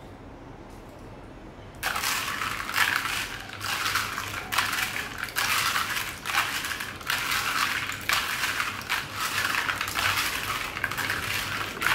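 Small decorative pebbles clattering and grinding together as they are scrubbed by hand in a plastic basin of water. The rattling starts suddenly about two seconds in and goes on as a dense run of clicks.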